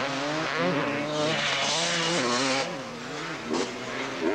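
Motocross dirt bike engines revving up and down as the bikes race round the track. A louder rushing hiss rises over them for about a second and a half in the middle.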